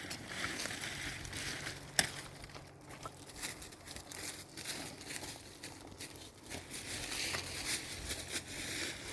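Crinkling, rustling handling noise with scattered small clicks; one sharp click about two seconds in.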